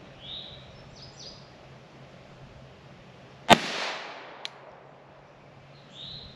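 A single pistol shot from a Glock handgun about halfway through, with a short echo trailing off, and a short sharp tick about a second later. A bird chirps near the start and again near the end.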